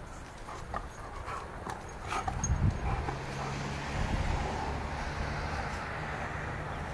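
Giant schnauzer's claws clicking and tapping on a hard floor as the dog moves about, in scattered quick taps, over a steady low hum.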